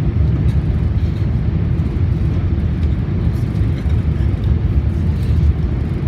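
Passenger-cabin noise of an E4 series Max double-decker Shinkansen running at speed: a steady low rumble from the wheels on the rails and the air rushing past, with faint occasional ticks.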